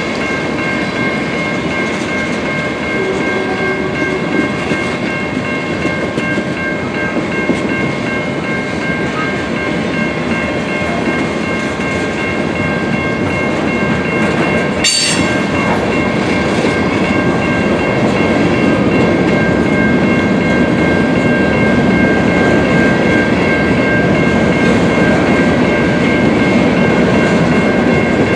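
Freight cars of a manifest train rolling past: a steady rumble and clickety-clack of steel wheels on rail, with steady high-pitched tones over it. A single sharp click comes about halfway through, and the rumble grows a little louder near the end.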